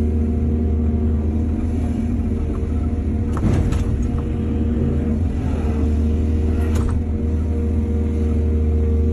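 Excavator's diesel engine running steadily, with two sharp knocks, one about three and a half seconds in and another near seven seconds.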